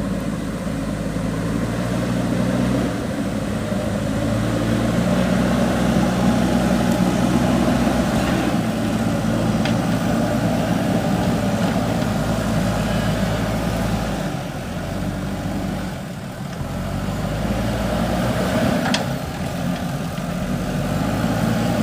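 Diesel engine of a JCB 3DX backhoe loader running steadily, easing off briefly about fourteen seconds in and again near the end.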